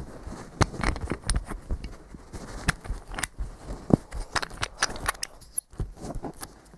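Close-up handling noise from hands fiddling with a handheld laser module: irregular clicks, taps and rustles, with a few sharper knocks.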